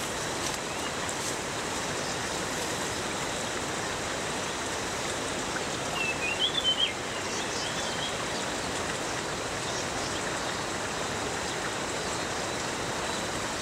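Steady rush of a forest stream, with a black-naped monarch giving one short run of high, wavering call notes about six seconds in.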